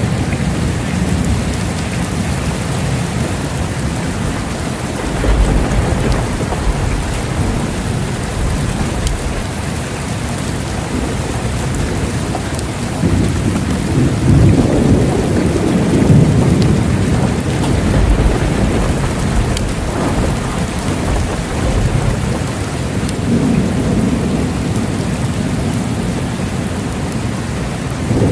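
Steady rain falling in a thunderstorm, with low rolls of thunder rumbling up several times: about five seconds in, a longer one from about thirteen to eighteen seconds, and again near twenty-four seconds.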